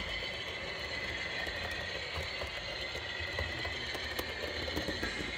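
HO scale model passenger train running on its track: a steady rolling whir with scattered light clicks of the wheels over the rail joints.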